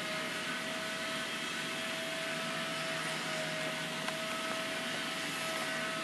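A motor running steadily: an even rushing whir with a constant mid-pitched whine, and a single click about four seconds in.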